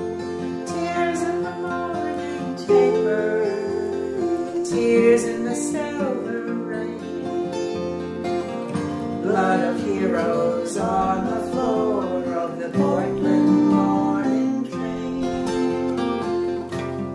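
Instrumental stretch of a song: strummed guitar with sustained chords and a melody line, no words sung.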